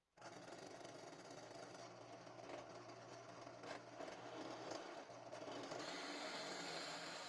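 A small electric power tool starts abruptly and runs steadily: a motor whir with a steady low hum under it.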